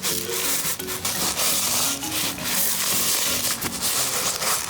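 A toy truck plowing and scraping through a bin of dry, loose sensory-box filler. It makes a continuous gritty rustling and scraping with small rattling ticks.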